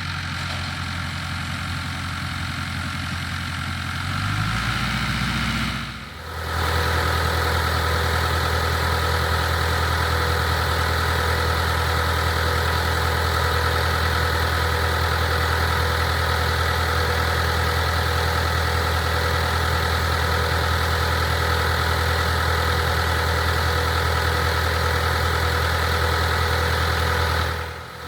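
International Harvester tractor engine running with the PTO-driven IH 82 pull-type combine in work. The engine note rises about four seconds in; after a brief dip near six seconds the machinery runs louder and steady.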